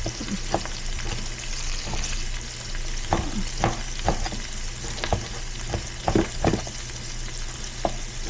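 Food sizzling in a hot pan while it is stirred, a utensil knocking and scraping against the pan many times, the knocks thickest in the middle.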